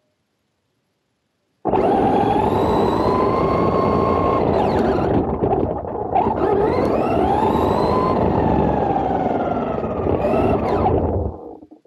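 Traxxas Rustler 4x4 RC truck's brushless electric motor whining, rising and falling in pitch as the throttle is worked, over loud rushing noise from the driving. It starts suddenly about two seconds in after near silence, and fades out near the end.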